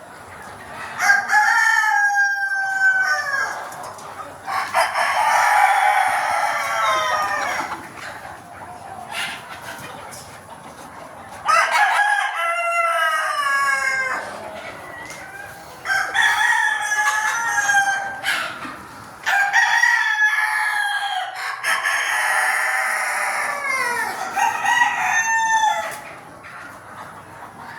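Desi (country) roosters crowing one after another: about seven long crows of around two seconds each, some overlapping.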